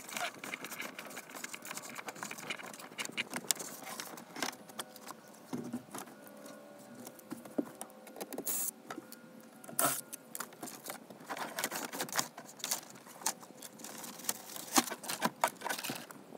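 Electrical cables being pulled and handled through a boat's storage compartment: irregular rustling, scraping and clicks, with a few sharper knocks.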